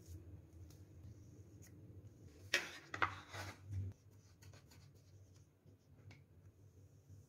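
A plastic scraper spreading and smoothing soft coconut burfi mixture in a steel tray: faint scraping and rubbing, with a few sharp clicks and scrapes about two and a half to four seconds in.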